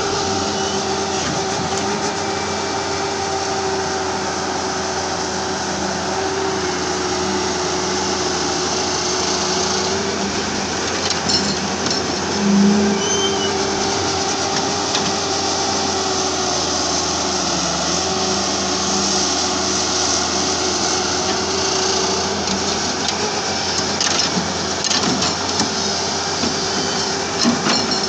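Halla HE 130W wheeled excavator's diesel engine running steadily under hydraulic load as it digs and loads soil. A few knocks and clatters come from the bucket working the dirt.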